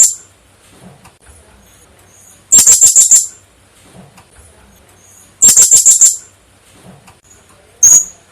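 Blue-crowned hanging parrot (serindit) calling: bursts of five or six rapid, very high-pitched notes about every three seconds, then one short call near the end.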